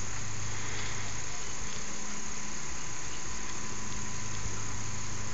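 Steady insect chorus: a continuous high chirring of crickets.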